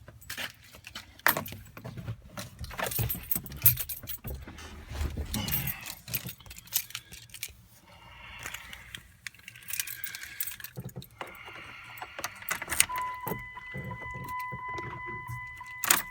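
Keys jangling, with scattered sharp clicks and knocks. About three quarters of the way in, a steady electronic chime tone starts and runs with small breaks: the Jeep Wrangler JK's warning chime, sounding normally although the Jeep will not start.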